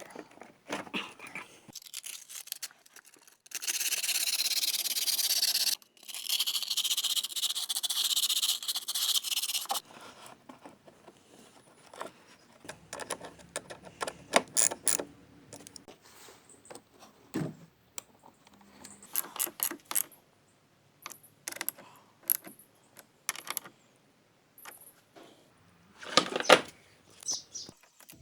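Sandpaper scrubbing a car battery's clamps and terminals to clear corrosion, in two long spells of steady hissing a few seconds each, followed by scattered clicks and small metal knocks as the clamps and tools are handled.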